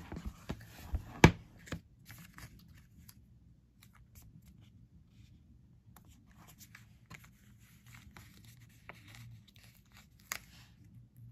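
Hands handling a tablet in its case: a few sharp clicks and taps in the first two seconds, the loudest about a second in. Then faint rustling and small taps as stickers are peeled and pressed onto the case's cover.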